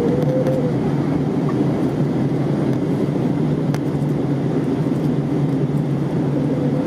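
Steady low engine rumble, with a faint whine that rises slightly near the start and again near the end.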